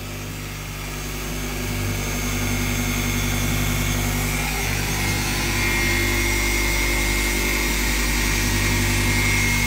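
Handheld electric polisher running steadily with a foam pad on a carbon fiber trunk lid. It is a motor hum with a high whine, growing a little louder over the first couple of seconds.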